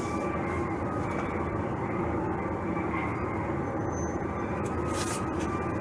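Semi-truck's diesel engine idling steadily, heard from inside the cab.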